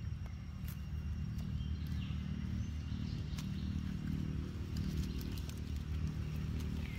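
Faint high squeaks from a baby macaque, with one short falling squeak near the end, over a steady low rumble and scattered light clicks.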